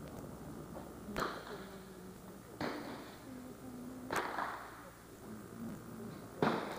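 Four .22 rimfire target rifle shots fired at irregular intervals from the 50 m prone firing line, each a sharp crack followed by a short echo.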